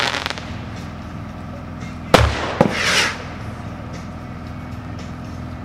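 One missile from a 12-shot guided-missile firework fires about two seconds in: a sharp pop with a low thump, a second crack half a second later, and a short rushing hiss as it flies.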